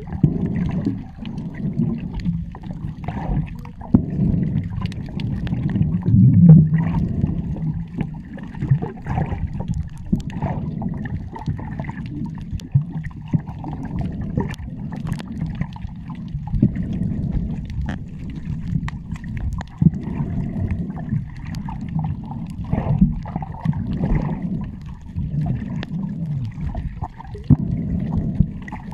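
Muffled underwater noise picked up by a camera held beneath the surface: a low, churning water rumble with gurgling bubbles and scattered small clicks and knocks.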